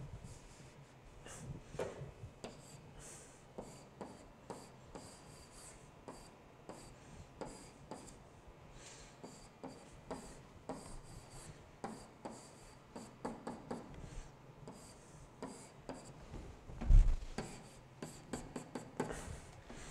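Stylus drawing boxes and arrows on an interactive writing surface: a run of short, irregular scratching strokes, with a louder dull thump about 17 seconds in.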